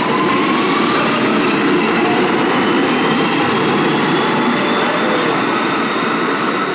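R160 subway train pulling out of a station and running past: a steady, loud rumble of wheels on rail with a whine that rises in pitch as the train accelerates away.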